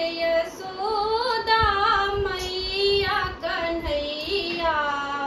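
A woman singing a kajri folk song about Yashoda and Krishna, solo, in long held notes that waver and bend.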